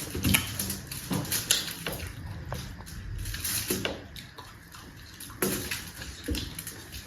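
Close-up eating sounds: wet chewing and mouth smacks with irregular small clicks, as of food being eaten near the microphone.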